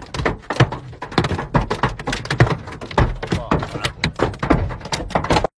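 Hailstones pelting a car's roof and windshield, heard from inside the cabin: a dense, irregular clatter of sharp knocks, several a second. The sound cuts out for a moment near the end.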